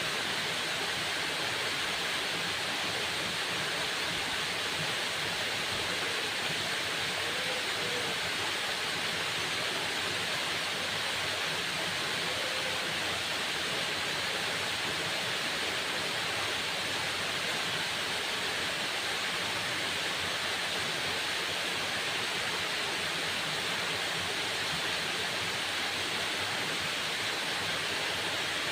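Waterfall: a steady, unbroken rush of falling water with a bright hiss.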